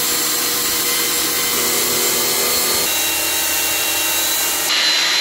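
Angle grinder grinding metal off a truck's steering arm, taking off material so 12-inch-wide wheels clear it. The grinding is loud and steady, and shortly before the end it turns thinner and higher-pitched.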